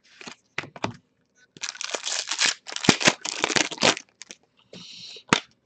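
Trading cards being handled: a few sharp clicks, then about two seconds of dense scratchy rustling and crinkling as cards are slid and shuffled, ending with a short hiss and a click.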